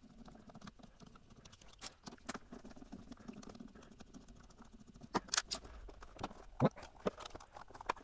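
Faint clicks and scrapes of a Torx screwdriver turning screws out of a polycarbonate power-adapter case, with a few sharper clicks between about five and seven seconds in.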